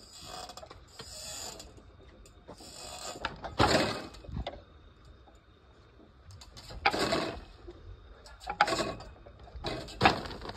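Ninja-rig ring and cane hardware scraping and clanking on a steel pipe bar in a string of short bursts as he swings, the loudest about a third of the way in and near the end.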